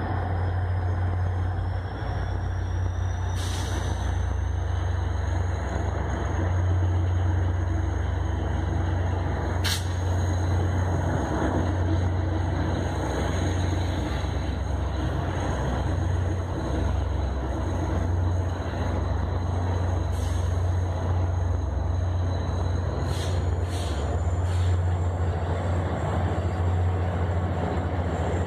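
VIA Rail's The Canadian passing at speed. Its F40PH diesel locomotives go by at the start, then the stainless-steel passenger cars roll past with a steady, heavy rumble of wheels on rail. A faint thin high whine drifts slowly in pitch, and a few sharp clicks come through.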